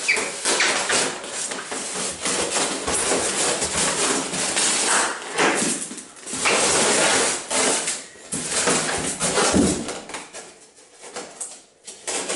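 Clear plastic stretch wrap being cut and pulled off polystyrene foam packing, crinkling and rustling, with the foam blocks rubbing and scraping against each other. It goes in irregular bursts and eases off briefly near the end.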